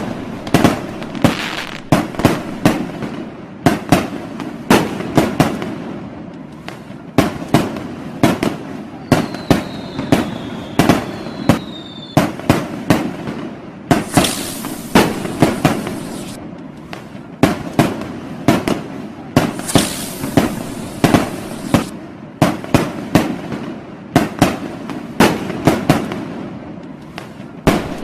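Firecrackers and fireworks going off in a dense string of sharp bangs, often several a second. Two stretches of high hissing crackle come midway through, and a falling whistle sounds about ten seconds in.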